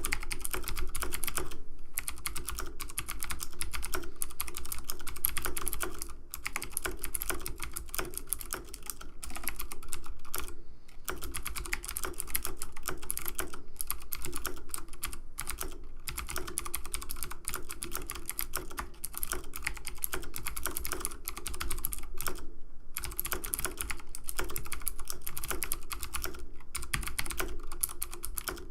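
Computer keyboard keys being typed on in fast, continuous clicking, with a few brief pauses.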